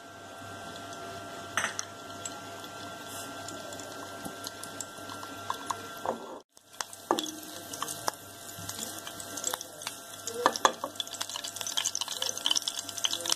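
Whole dried red chillies, curry leaves, a green cardamom pod and a cinnamon stick sizzling and crackling in hot ghee in a frying pan as a tadka. The crackle gets busier in the second half, with a brief break about halfway.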